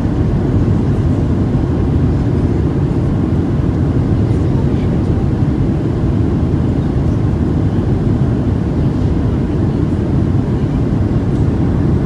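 Steady engine and airflow noise of a Boeing 737-700, heard from inside the passenger cabin: a constant low rumble with no distinct thumps or changes.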